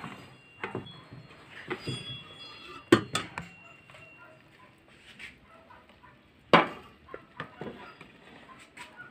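A few sharp knocks and clatters from an air fryer's basket being pulled out and handled, the loudest about three seconds in and again past halfway. Faint animal calls sound in the background.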